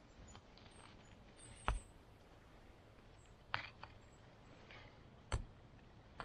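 Rocks being set down one at a time against other rocks: four sharp knocks, a second or two apart.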